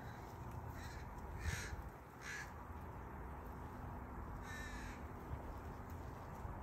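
A bird calling outdoors: three short calls, two close together about a second and a half in and one more a couple of seconds later, over low background rumble.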